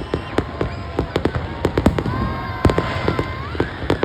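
Fireworks display: a rapid, irregular run of bangs and crackling pops, several a second, over a continuous rumble.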